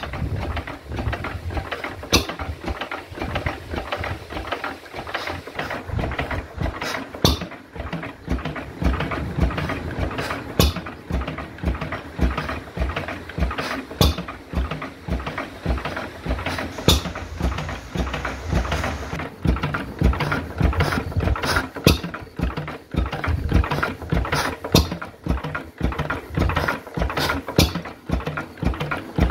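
Century-old Lister 3 hp side-valve petrol stationary engine running steadily, its valve gear and tappets clattering rapidly, with sharper bangs at uneven intervals.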